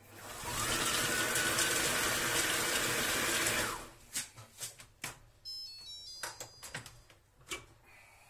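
Monsieur Cuisine Plus food processor chopping chunks of carrot, celery and potato at speed 5 for about four seconds: the blade motor whines up to speed, runs, and stops. Then a few knocks and a short run of electronic beeps.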